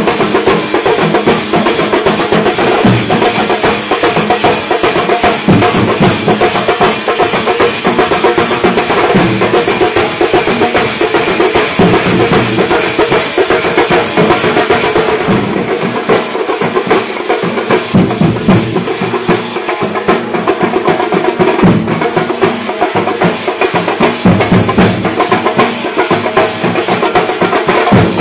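A Kerala percussion ensemble playing fast, loud chenda drums, with a dense clash of cymbals above them that thins out about halfway through.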